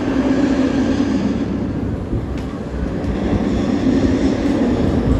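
Concrete mixer truck's diesel engine running steadily at raised revs, with a hum and low rumble, as the drum discharges concrete into a footer.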